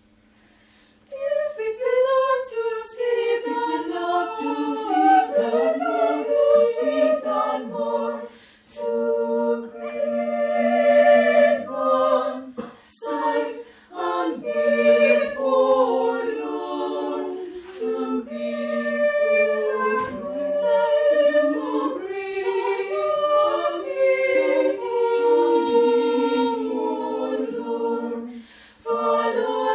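Mixed-voice choir of men and women singing a cappella, coming in about a second in and breaking briefly between phrases.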